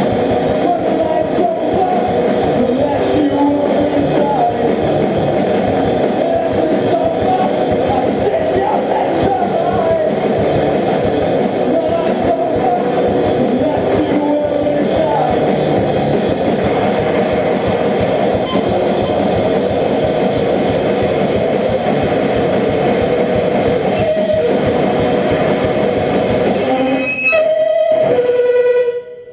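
Live rock band playing loud with guitars. Near the end the full band drops away, leaving a few held notes, and then the sound cuts off.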